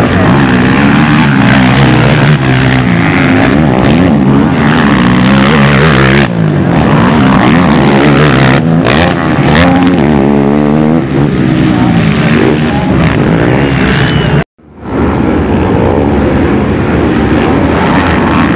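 Racing ATV (quad) engines revving hard, pitch climbing and falling again and again as the riders accelerate, shift and back off through the corners and hills. Near the end the sound cuts out for an instant at an edit, then the engines resume.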